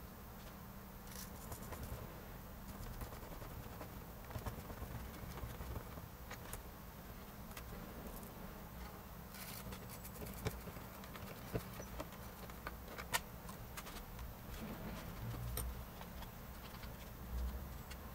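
Scattered small clicks and taps of hands handling tiny screws and a small screwdriver, driving a screw into a wooden popsicle-stick rudder arm, over a faint low hum.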